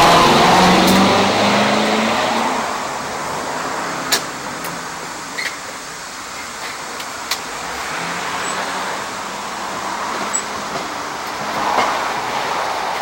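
Road traffic: motor vehicles driving past, swelling loudest at the start and again later, with a few sharp clicks in between.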